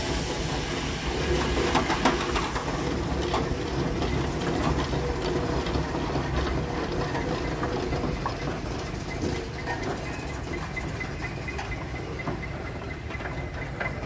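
Steam traction engine driving past close by: a steady low running rumble with steam hiss and scattered clanks and knocks from its gearing and steel-cleated wheels.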